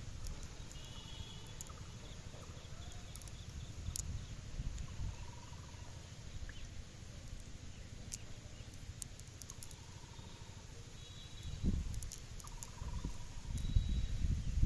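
A short bird call repeats every two to three seconds over a steady low rumble, which grows louder near the end.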